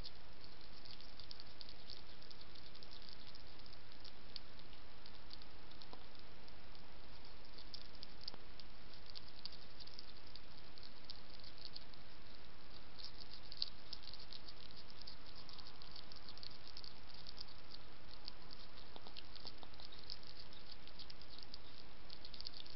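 A European hedgehog chewing dry kitten biscuits, giving irregular crackly crunching that pauses briefly midway, over the steady hiss of a trail camera's microphone.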